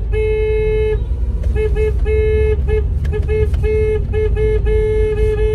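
A car horn honked over and over: a blast of about a second, then a string of short toots and longer blasts, over the low rumble of the car on the road.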